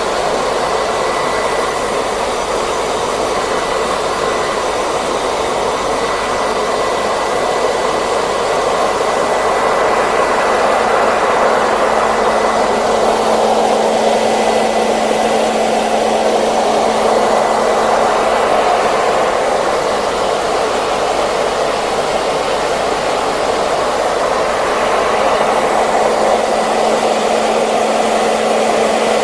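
Hair dryer running continuously, a steady rush of blown air with a faint motor whine, its pitch drifting slowly up and down.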